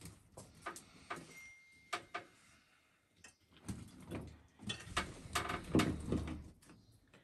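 Irregular knocks, clatters and scrapes of broken stone and tile pieces being chipped loose and handled during demolition, heavier thuds clustering in the middle.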